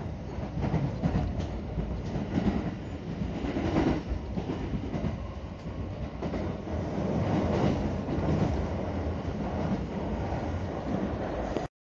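Steady rumble of a 225-series electric train running at speed, heard from inside the carriage, with a few faint knocks of wheels over rail joints. It cuts off suddenly near the end.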